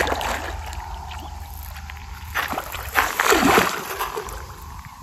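A hooked mirror carp splashing and wallowing at the surface close to the bank as it is played: a splash at the start, another about two and a half seconds in, and the longest and loudest burst of splashing around three seconds in.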